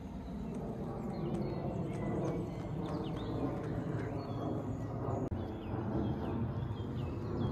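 Songbirds singing in the trees, many short whistled notes and chirps, over a steady low rumble.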